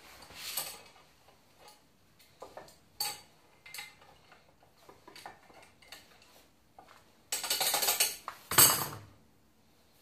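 Steel bearing-puller parts and tools clinking and knocking against each other and the gearbox as the puller is set up on the transmission. There is a denser rattle a little after seven seconds and a louder knock just after it.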